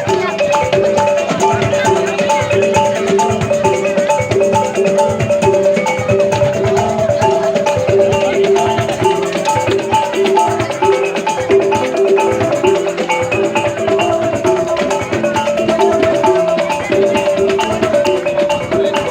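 Music: a fast, repeating melody of short struck pitched notes over busy rattling and drummed percussion.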